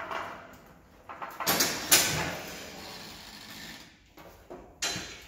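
Honda CRF250R dirt bike being pushed up onto a metal hospital-bed lift: clanks and knocks of the wheels and frame against the bed and its wheel chock. The loudest bang comes about two seconds in and another just before the end.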